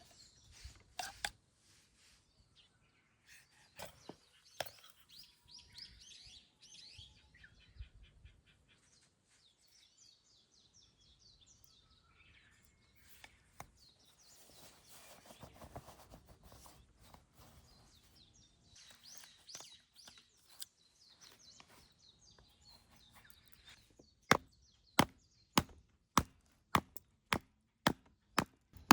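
Firewood being chopped: scattered knocks, then near the end a quick run of sharp blows about two a second, with birds chirping throughout.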